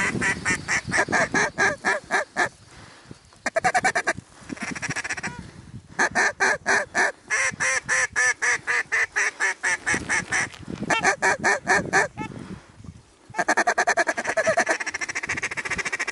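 Duck and goose calling: runs of loud, quick quacks and honking clucks, several a second, repeated in a handful of bursts with short pauses between.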